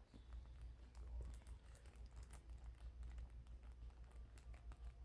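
Faint, scattered light clicks and taps from small slime-kit pieces being handled, over a steady low hum.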